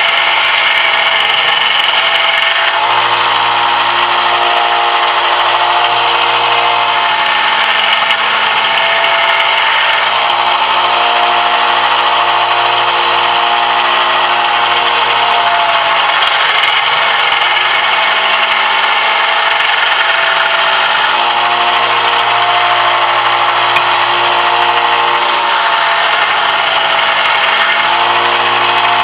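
An electric power tool runs steadily while working a brass piece, a dense grinding noise over a motor hum. The hum shifts in pitch several times, around 3, 10, 21 and 28 seconds in, as the load on the motor changes.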